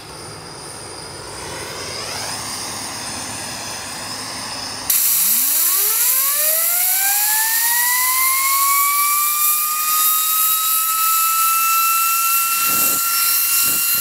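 A softer hiss builds for a few seconds, then a motor-driven blower on a homemade propane jet noisemaker switches on about five seconds in: a loud rush of air with a whine that climbs as the motor spins up, then holds steady and high.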